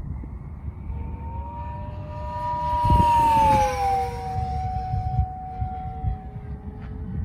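E-flite Rare Bear 880mm electric RC plane on 4S with an 8x8 propeller making a pass: a steady propeller whine that grows louder, then drops in pitch about four seconds in as the plane goes by and holds the lower note.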